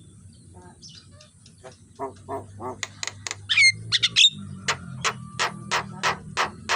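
Javan myna calling: a few harsh squawks and chirps, then from about halfway a rapid regular series of sharp chips, about four a second.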